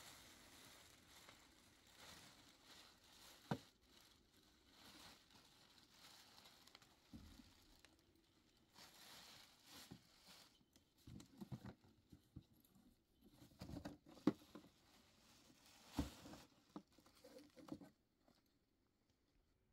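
Plastic bag and cloth rustling as patterned fabric is pulled out of a large plastic bag and handled, in soft stop-start bursts with a few light knocks.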